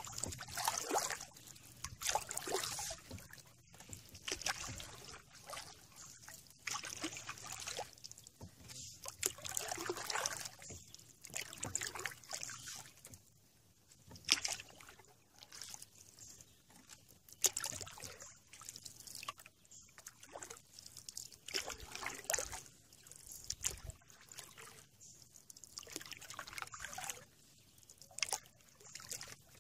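Canoe paddle strokes in calm river water: a swish of the blade every two to three seconds, with water trickling and dripping off the paddle between strokes.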